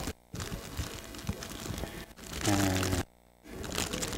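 Soft crinkling of food wrapping being handled, with a brief murmured voice about two and a half seconds in; the sound cuts out completely twice for a moment.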